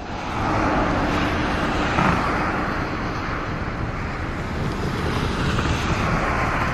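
Steady road traffic noise: vehicle engines and tyre roar on a road.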